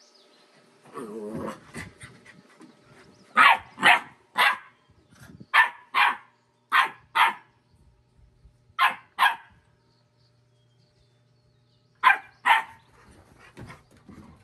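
Puppy barking in short, sharp yaps, about eleven in all and mostly in quick pairs, after a brief lower-pitched sound about a second in.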